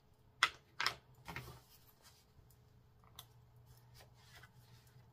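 A few quick, sharp clicks and taps, the loudest about a second in, then faint scattered ticks: clear acrylic stamps and paper being handled on a cutting mat.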